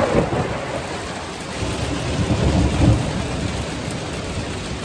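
Heavy rain pouring down steadily, with a low rumble of thunder swelling about a second and a half in and fading out by about three seconds.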